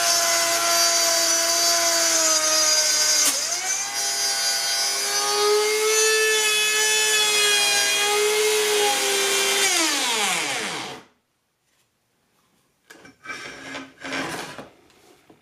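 Craftsman router running and cutting into OSB sheet along a circle jig, a steady high motor whine. About three seconds in there is a sharp click and the pitch dips, and about ten seconds in the motor winds down in pitch and stops within a second, followed by a few faint knocks. The router's spindle lock, which also keeps the bearing in, had been removed: the bearing dropped and the motor fan ran into the housing, locking the router up.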